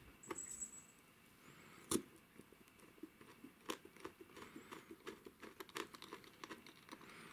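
Faint, irregular clicks and scraping of a hand-twisted pin vice drilling a small pilot hole through the point motor's mounting hole into the baseboard, with one sharper click about two seconds in.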